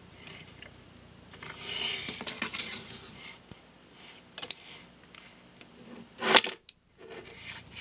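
Hard plastic Transformers action figures and a clear plastic sword accessory being handled and posed: soft rustling of fingers on plastic, a light click about halfway, and a sharp plastic click shortly before the end.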